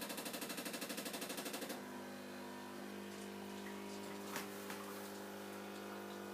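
Pod coffee machine's pump starting up with a fast, even pulsing, about a dozen beats a second, then settling after under two seconds into a steady hum as it begins pushing milk from a creamer capsule.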